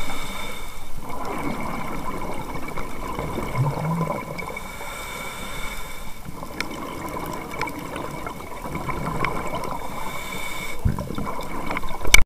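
Underwater sound of a scuba diver's breathing: a continuous bubbling and hissing wash that eases off briefly about every five seconds, then rises to a loud surge at the very end.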